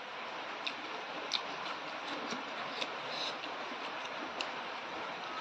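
A person chewing food close to the microphone: a few scattered, faint mouth clicks and smacks over a steady hiss.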